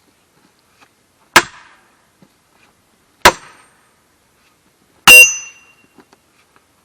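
A sledgehammer striking a steel splitting wedge driven into a large firewood block: three hard blows about two seconds apart, the last one with a ringing metallic clang.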